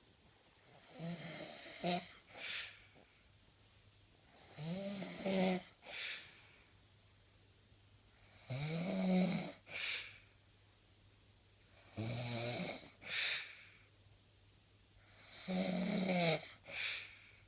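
A person snoring in sleep, about every three and a half seconds, five times. Each time a pitched snore on the in-breath is followed by a short puff of breath out.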